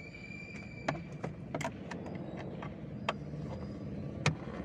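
Several sharp clicks and knocks, as of hand tools and parts being handled during work inside a car's opened dashboard, the loudest near the end, over a steady low hum.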